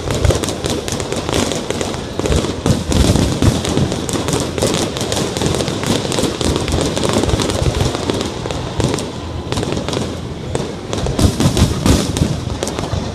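Aerial fireworks display: a continuous rapid barrage of bangs and crackles, many shells going off close together, with a few louder clusters near the end.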